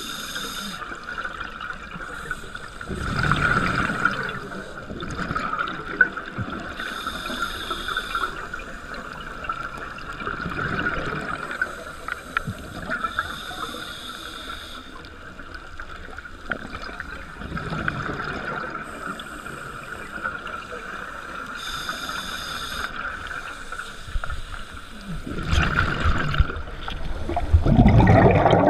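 Scuba diver breathing through a regulator underwater: a short high hiss on each inhale, then a rush of exhaled bubbles, about four breaths in a slow, even cycle, the last exhale the loudest.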